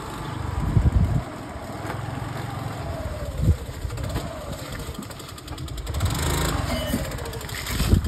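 Motorcycle engine running close by, its pitch rising and falling gently, with a few dull thumps on the microphone.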